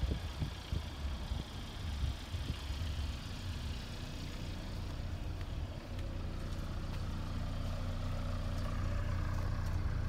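Car engine idling: a low steady hum that grows steadier and a little louder from about halfway through. Irregular low rumbles come in the first few seconds.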